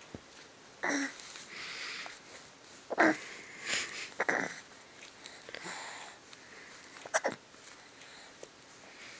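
A dog hiccuping: several short, sharp hics at uneven intervals, with wheezy breathing between them.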